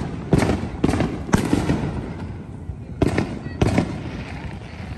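Aerial fireworks bursting just overhead: five sharp bangs, three in quick succession about half a second apart, then two more about three seconds in.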